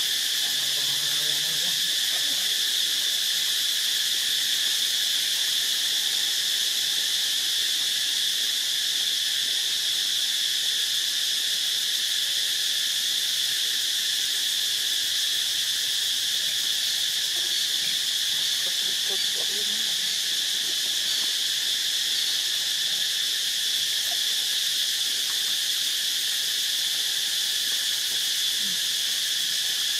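Steady, unbroken high-pitched drone of a chorus of insects.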